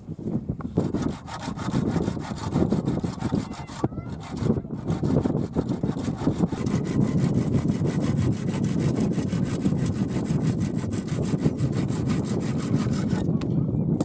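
Handsaw cutting through bamboo with quick back-and-forth strokes, with a short pause about four seconds in, stopping shortly before the end.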